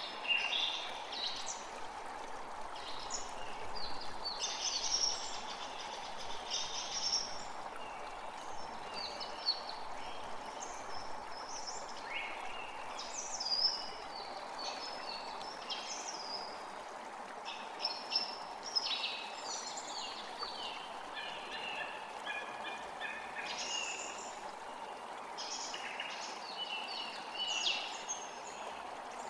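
Several birds calling and singing, short chirps and trills overlapping throughout, over a steady background rush.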